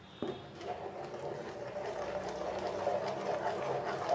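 Metal spatula stirring a thick, wet mix of roasted gram flour, ghee and sugar syrup in a kadai: quick wet squelching and scraping against the pan, starting a moment in and going on steadily.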